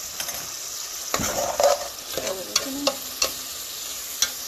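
Diced chicken sizzling in hot oil in a metal pot, with a steady hiss. A spoon clicks and scrapes against the pot several times as it is stirred.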